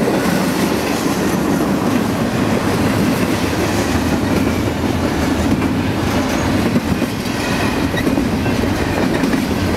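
Double-stack intermodal container cars rolling past on steel wheels over the rails, a steady low rolling noise.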